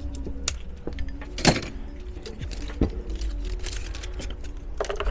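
Scattered metallic clinks and knocks from hand tools working on a car's rear suspension, the loudest about a second and a half in, with faint background music.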